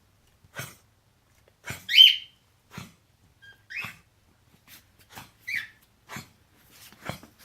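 A pet coughing in a run of about ten short, sharp coughs, roughly one a second. A few of them, the loudest about two seconds in, come with a high squeaky wheeze.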